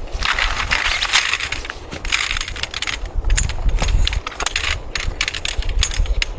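Snow crunching up close: a dense, irregular run of crisp crackles.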